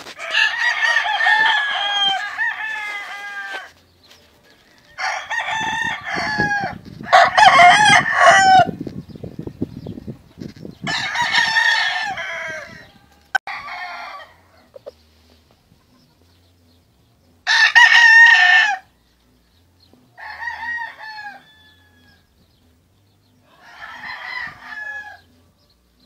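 Gamefowl roosters crowing again and again, about eight crows of one to three seconds each; some are loud and close, others fainter.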